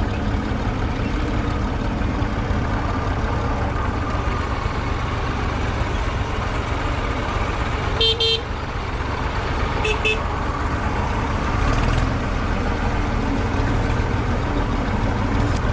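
IMT tractor's three-cylinder diesel engine running steadily under way, with two short horn toots about eight and ten seconds in.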